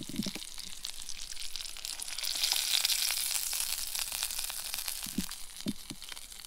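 Brook trout frying in a pan: a steady sizzle with fine crackles, swelling louder about two and a half seconds in before settling back.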